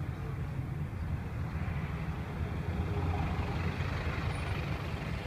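Street traffic: a steady low rumble of engines and tyres, growing a little louder about two to four seconds in as a van passes close alongside.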